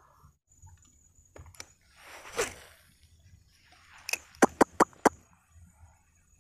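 Angler working a spinning rod and reel: a short rushing noise about two seconds in, then a quick run of about five sharp clicks from the spinning reel being handled, over a faint steady high insect whine.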